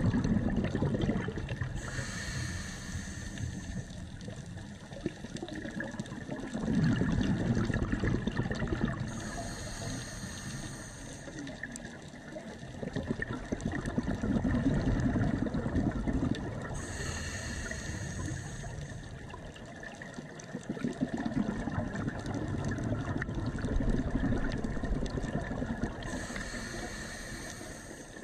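Scuba diver breathing through a regulator, heard through the camera's underwater housing: four slow breath cycles, each a hissing inhalation through the regulator and a long gurgling rush of exhaled bubbles.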